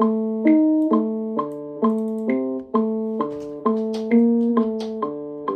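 A sampled chord loop played back on a Maschine MK2 groovebox, a keyboard-like chord struck about twice a second with each one decaying before the next. A few light high ticks come in around the middle.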